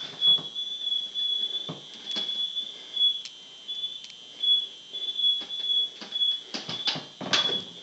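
A household alarm's piezo sounder gives a high, steady tone that pulses brighter in short, uneven beats. Scattered clicks and knocks of handling sound over it, several of them close together near the end.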